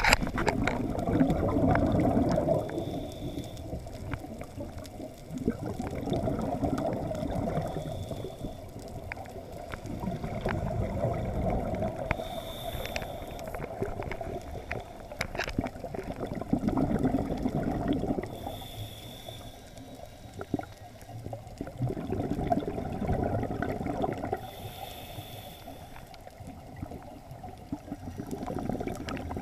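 Scuba diver breathing through a regulator, recorded underwater: a bubbling rush of exhaled air about every six seconds, each followed by a short hiss of the inhale.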